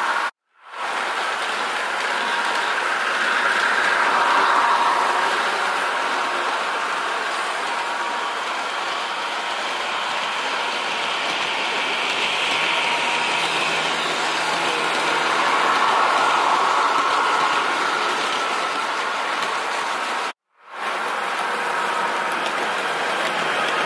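HO-scale model trains running on track, with Loksound 5 DCC sound decoders playing recorded train running sounds: a steady noise carrying faint steady tones that swells twice. The sound cuts to silence for a moment about half a second in and again about 20 seconds in.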